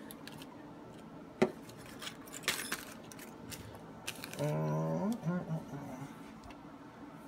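Small metal parts and tools clinking and knocking on a workbench as they are shuffled about, in scattered sharp clicks with a louder knock about a second and a half in and a cluster of clinks a second later.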